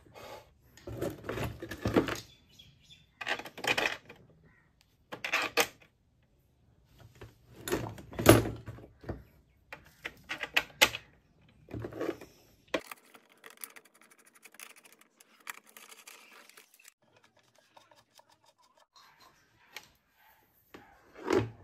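Handling noise from reassembling a mixer grinder's metal motor housing: irregular rubbing, knocks and clicks as the base is turned over and its screws are fitted. After about 13 seconds it drops to faint rapid clicking.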